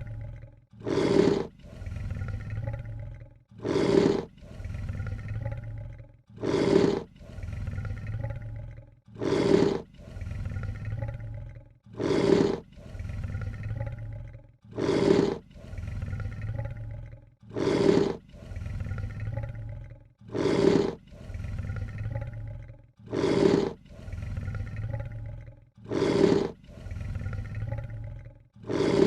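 A lion hissing, repeated on a loop: a sharp, loud hiss about every three seconds, each followed by a quieter, drawn-out low rumble.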